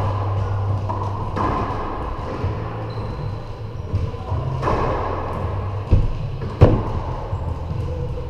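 Racquetball rally: the rubber ball struck by racquets and slapping off the court walls, a series of sharp cracks, the two loudest less than a second apart about six seconds in, over a steady low hum.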